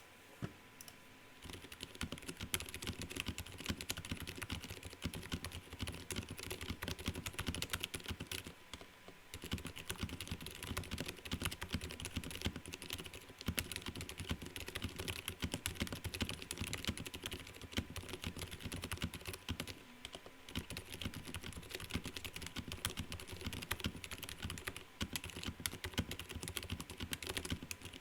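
Fast continuous typing on a Vortexseries VX6 mechanical keyboard with lubed Gateron Silent Brown switches (stems in Cherry MX housings), O-ring gummy-mounted, with PBT keycaps: a dense run of soft, muted keystroke clacks, pausing briefly twice. A faint steady hum sits beneath.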